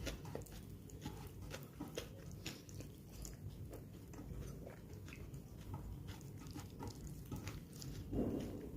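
Close-miked chewing and biting of food, with many small crisp crunching clicks. Near the end there is one louder, duller sound.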